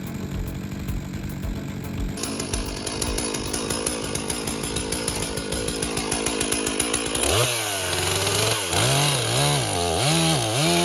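Two-stroke chainsaw engine running with a fast pulsing note, then revved up and down several times from about seven seconds in, its pitch rising and falling.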